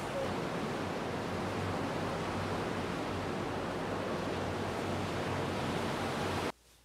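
Sea surf washing onto a sandy beach, a steady rush of waves that cuts off suddenly near the end.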